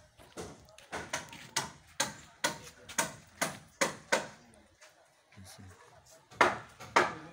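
Regular blows of a tool on wood, about two a second, stopping about four and a half seconds in and starting again louder near the end.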